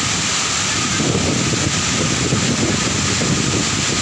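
Waterfall pouring, a loud steady rush of falling water, with wind buffeting the microphone from about a second in.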